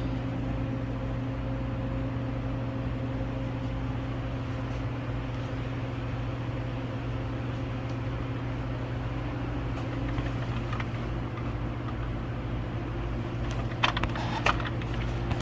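Steady machine hum from a refrigerated snack vending machine's cooling unit, its compressor and fan running to pull the cabinet temperature down just after it was refilled. A few sharp clicks sound near the end.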